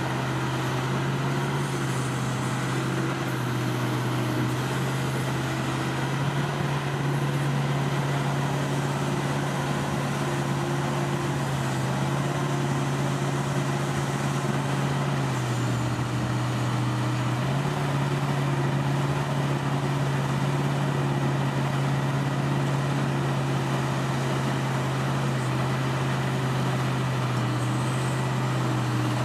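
Crawler excavator's diesel engine running steadily as the machine digs, its low note stepping down and back up a few times.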